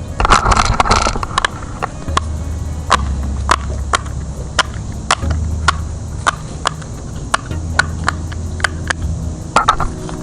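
Bubbles of a silicone pop-it fidget toy being pushed in one at a time with a finger, each giving a sharp pop, about two to three a second at an uneven pace.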